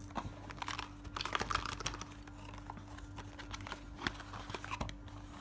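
Cardboard and plastic packaging of a wireless clip-on microphone set being handled and slid open: a run of small clicks, taps and crinkles, busiest in the first two seconds, then scattered.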